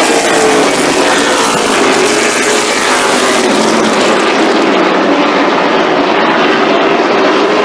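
Late model stock car engines running at race speed around the oval: a loud, steady engine drone whose pitch slowly rises and falls as the cars lap.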